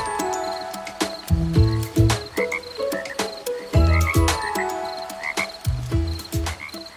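Frogs croaking in a chorus, short calls coming in repeated groups every second or so, with pulsed high trills among them.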